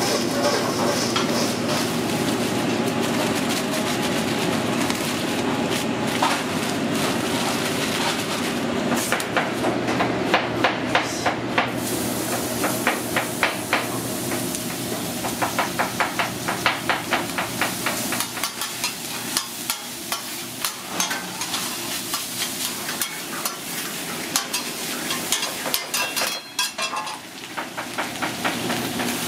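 Metal spatulas chopping and scraping on a steel flat-top griddle, a fast clatter of several strikes a second that starts about a quarter of the way in. Underneath is the steady sizzle of shaved steak and sliced black olives frying.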